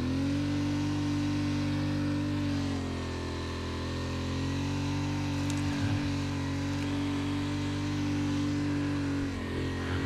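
ATV engine running steadily under load as it climbs a snow-covered slope, its pitch sagging a little about three seconds in and then picking back up.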